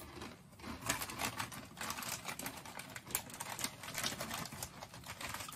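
Two people chewing crunchy Takis Fuego rolled tortilla chips with their mouths closed: a dense, irregular run of small crunches.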